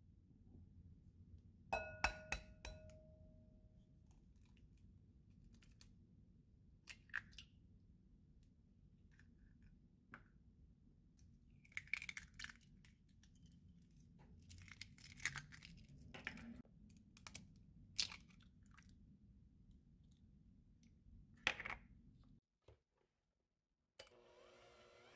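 Quiet kitchen preparation sounds: scattered clinks, taps and rustles of bowls and utensils, with one ringing clink about two seconds in, over a low steady hum that cuts out briefly near the end.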